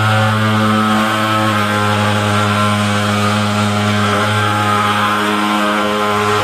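Hand-held thermal fogging machine's pulse-jet engine running steadily with a loud, even drone as it blows out disinfectant fog.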